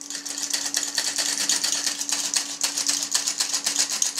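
A hand-operated stainless steel flour sifter working flour through its mesh, making rapid, even clicking and rasping, several strokes a second.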